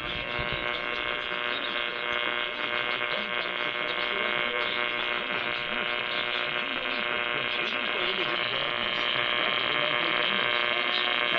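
Emergency Alert System two-tone attention signal (853 and 960 Hz together) received over a broadcast station, holding steady and unbroken.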